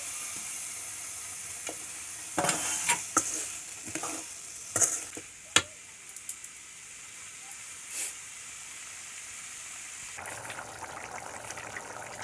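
Onion and ginger-garlic masala sizzling in hot oil in a pan, with a spoon knocking and scraping against the pan several times between about two and six seconds in. Near the end the frying turns to a busier, fuller crackle.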